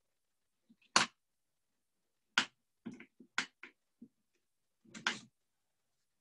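A run of sharp clicks and light knocks, about seven and unevenly spaced, the loudest about a second in: drawing markers or crayons being picked up and set down on a tabletop.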